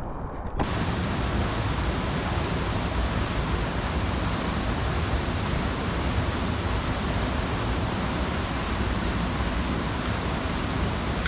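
Rushing water of a mountain river: a loud, steady rush that starts abruptly about half a second in.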